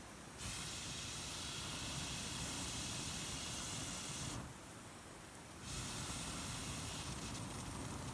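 Long, steady blowing of breath into a bonfire that is struggling to catch on damp firewood: two rushing blows of about four seconds each, with a short pause for breath between them.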